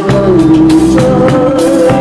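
A woman singing into a microphone over instrumental backing, holding one long wavering note and then stepping up to a higher held note.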